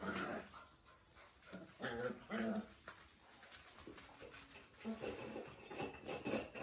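Bhotia and Labrador puppies play-fighting, giving short pitched cries: one at the start and two close together about two seconds in, then fainter sounds later on.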